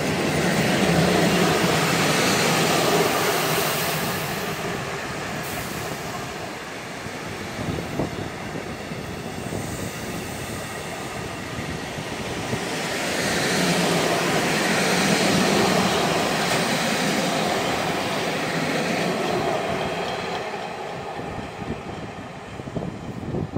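Container freight train running past close by: the steady noise of wheels on rail and rattling wagons, swelling twice and fading near the end as the last wagons go by.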